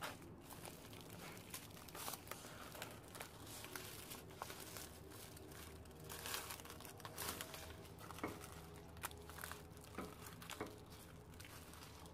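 Dried bamboo leaves crinkling and rustling as hands rub and shift the bundle in a stainless steel pot of soaking water, with irregular sharp little crackles throughout.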